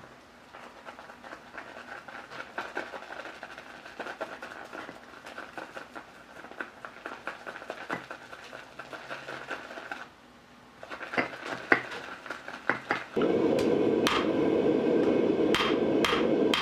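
Faint scattered ticking and scraping of small metalwork over a thin steady tone, with one sharper tick past the middle. About thirteen seconds in, a loud steady rushing noise starts suddenly, and a second later hammer blows begin ringing on steel.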